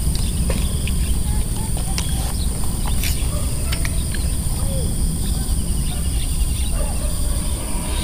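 Outdoor ambience by a pond: a steady low rumble on the microphone, a steady high-pitched drone, and a few faint bird chirps and small ticks.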